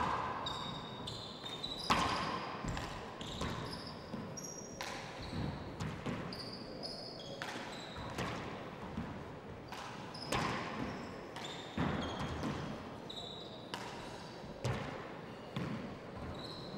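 Handball rally: the hard rubber handball slapped by hand and smacking off the front wall and wooden floor in sharp irregular hits, each echoing briefly. Short high squeaks of players' shoes on the wooden court floor come between the hits.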